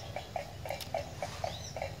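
Bird-lure recording of the cinereous tit: a rapid, even train of short low notes, about six a second, with a single high curved chirp near the end.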